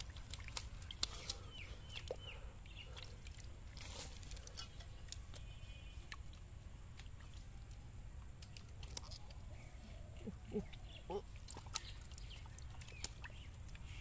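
Hands groping in a muddy, water-filled hole for live eels: faint wet squelches, small splashes and scattered clicks of mud and water, with a few short chirps about two seconds in.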